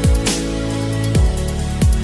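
Electronic soundtrack music with a heavy beat: deep kick drums that drop sharply in pitch, a sharp snare-like hit, and held synth bass notes underneath.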